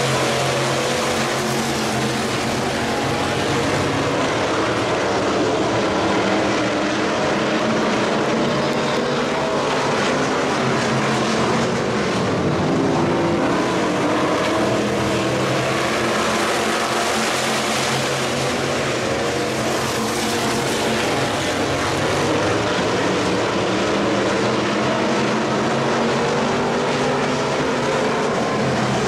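A pack of factory stock dirt-track race cars running laps together, a steady mix of several engine notes overlapping.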